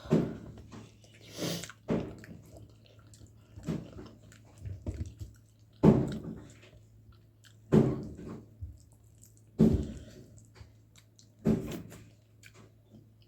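A person eating: chewing and mouth noises that come in short bursts about every two seconds, over a faint steady hum.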